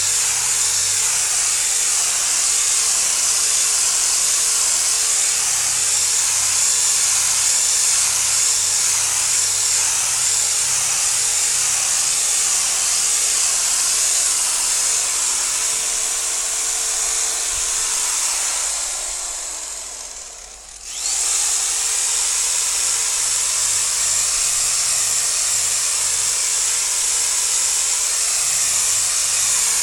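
Electric car-body polisher buffing painted panels with compound, running at a steady high-pitched whir. About two-thirds of the way through it winds down briefly, then comes straight back up to speed.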